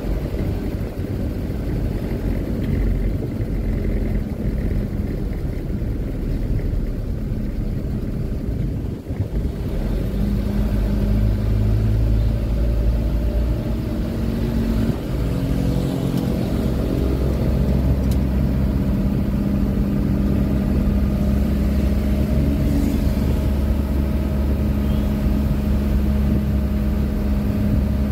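Truck engine running as the truck drives, a steady low drone. It dips briefly about nine seconds in, then comes back louder with its pitch shifting up and down.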